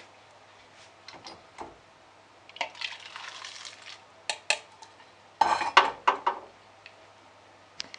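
An aluminium yukihira saucepan and a bowl being handled: light clinks, then hot soup poured from the pan into the bowl, then a burst of clattering knocks of pot and bowl a little past the middle, the loudest part.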